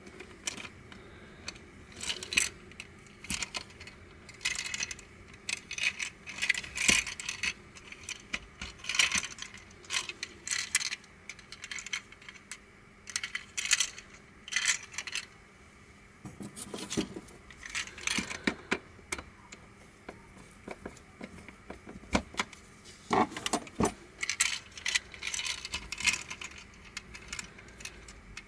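Hard plastic pieces of a Crazy Octahedron Plus twisty puzzle clicking and clattering as they are handled and fitted together, in irregular bursts of sharp clicks with a few duller knocks.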